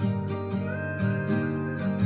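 Background music: acoustic guitar plucked and strummed in a steady, even rhythm.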